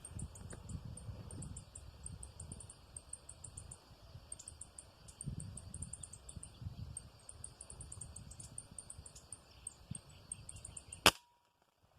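Insects chirping steadily in rapid high pulses over a low rumble of wind and handling. About eleven seconds in comes a single sharp crack, an air rifle shot, after which the sound cuts off abruptly.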